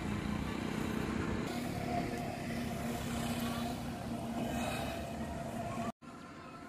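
A steady motor hum over a noisy background. It cuts out suddenly about six seconds in and comes back quieter.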